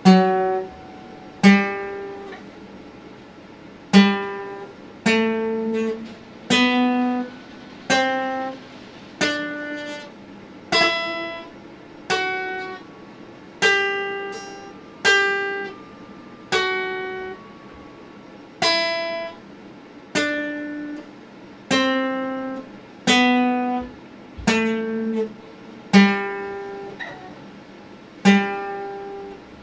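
Acoustic guitar played slowly, a chord struck about once a second, each ringing out and fading before the next, with the bass note moving from chord to chord.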